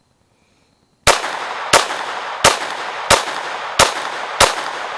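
Glock pistol with an Advantage Arms .22 LR conversion kit firing single shots at a steady pace, about 0.7 s apart. Six shots, starting about a second in.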